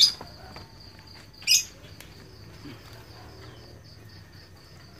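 An insect chirping steadily in the background, a high note pulsing rapidly and evenly. Two short, loud hissy sounds come at the start and about a second and a half in.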